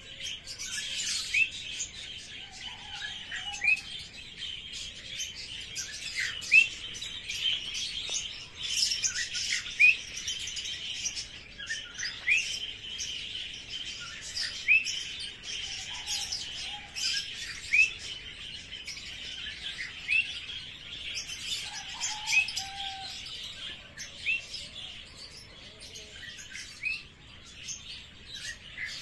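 Small birds chirping and chattering continuously, with one short rising call repeated about once a second.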